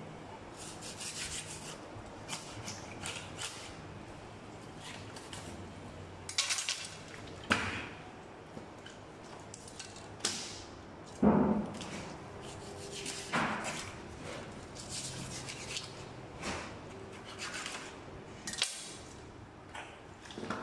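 A large knife cutting the fins off a whole tuna on a cutting board: scattered short scrapes and knocks of blade on fish and board, the loudest about eleven seconds in.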